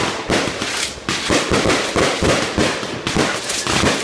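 Fireworks going off in quick succession: a continuous run of sharp bangs and crackles, several a second.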